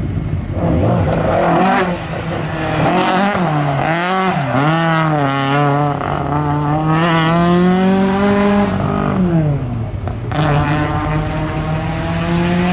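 A race car's engine is pulled hard, its pitch climbing under acceleration. The pitch drops sharply about nine seconds in as the driver lifts off, then climbs again from about ten seconds.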